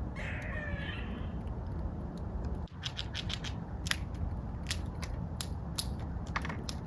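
A short call of falling high whistles at the very start, then a run of irregular sharp clicks and scratches from about three seconds in.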